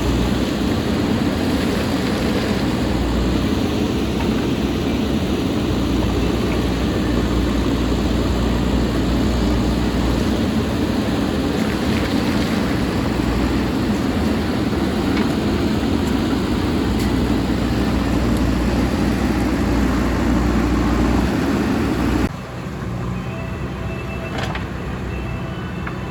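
JCB backhoe loader's diesel engine working under load, loud and steady. About 22 seconds in it suddenly drops to a quieter, even running.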